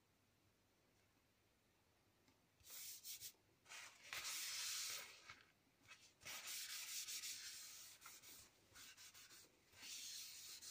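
A soft white pad rubbed by hand back and forth over a sheet of patterned paper, in several scratchy spells beginning about two and a half seconds in. It is faint.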